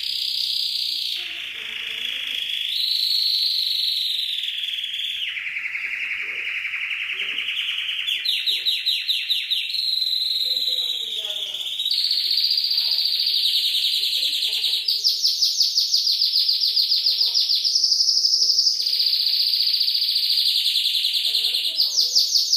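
Domestic canary singing one unbroken song of fast trills and rolls, the pitch stepping up or down with each new phrase.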